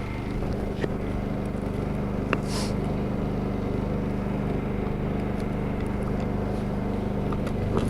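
Honda portable generator engine running steadily under load, a constant hum that picks up slightly about half a second in, with a few faint clicks.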